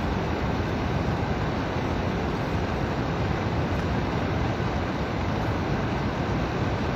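A steady, loud rushing noise with no pitch in it, like static.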